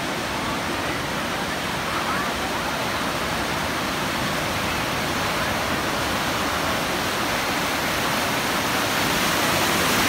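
Ocean surf breaking and washing through shallow water close by, a steady rushing that swells toward the end as whitewater rolls in.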